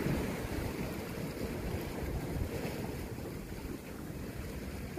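Wind blowing on the microphone over the wash of sea waves against shore rocks: a steady, uneven low noise.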